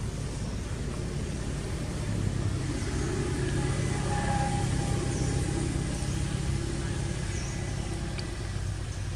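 A motor vehicle's engine running as it goes by: a low hum that grows louder around the middle and fades again.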